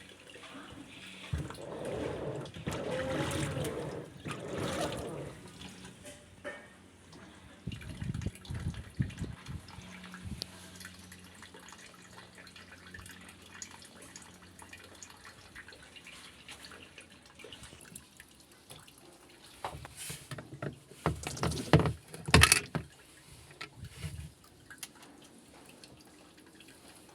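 Water splashing and dripping, with scattered clatter and a cluster of sharp knocks near the end.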